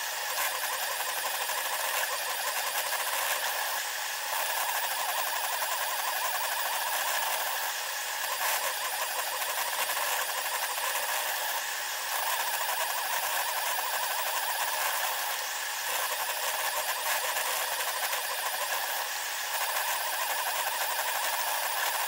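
SeeMeCNC Orion delta 3D printer running a print, its sound sped up tenfold along with the picture. Its motors and fans come out as a continuous high, noisy whir with brief dips about every four seconds.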